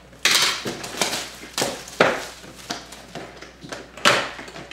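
Clear plastic shrink wrap being torn and crinkled off a sealed trading-card box, in a series of sharp rustling bursts.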